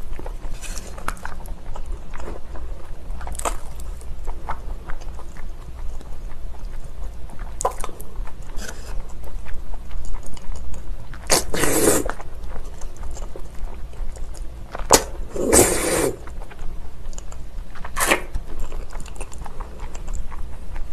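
A person eating spicy cold noodles close to the microphone: wet chewing smacks and clicks throughout, with two long, loud slurps of noodles, one about eleven seconds in and another about four seconds later.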